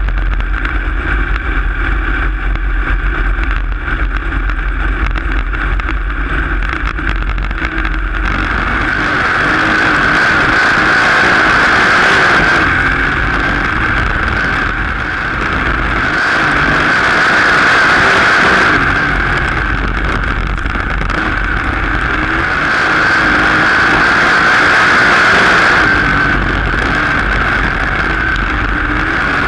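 On-board sound of a dirt-track sprint car's engine with wind on the microphone. It runs at a lower, steadier pace at first, then is at full racing speed from about eight seconds in, swelling and easing about every six to seven seconds as the car goes through the laps.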